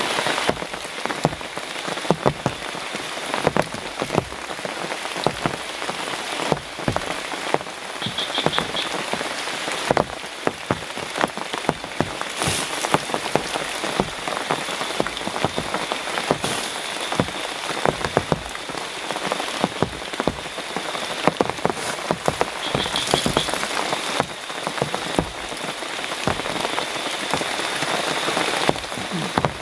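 Heavy rain falling steadily, with many sharp close drips and drops striking nearby. A short high trilling call is heard twice, once about eight seconds in and once near 23 seconds, over a faint steady high tone.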